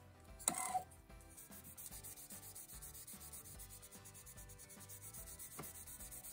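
Waterproof abrasive paper rubbed by hand against a Montblanc 234½ fountain pen barrel turning in a small lathe: a fast, even scrubbing, the wet-sanding stage of the barrel's refinishing. A brief louder scrape about half a second in.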